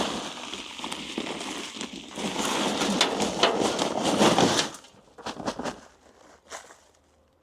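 Soil and potatoes being tipped out of a grow bag into a wheelbarrow: a dense rustling and pattering that stops about four and a half seconds in, followed by a few scattered rustles.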